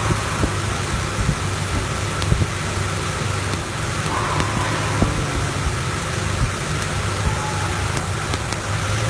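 Toyota 2RZ-FE 2.4-litre four-cylinder engine idling with irregular sharp clicks and snaps over a steady hum. It is misfiring because the insulation on the factory spark plug wires has broken down and lets spark cross over into another cylinder.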